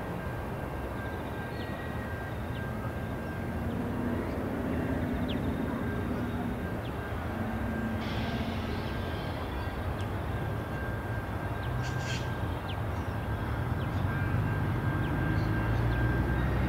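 Diesel locomotives hauling a heavy freight train of rail wagons, approaching slowly with their engines running, the sound growing louder toward the end.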